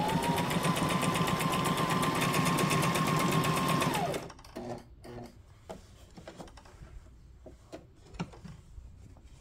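Brother SM2700 electric sewing machine running at speed while sewing a decorative stitch: a steady motor whine with rapid, even needle clatter, which stops about four seconds in. A few faint clicks and knocks follow.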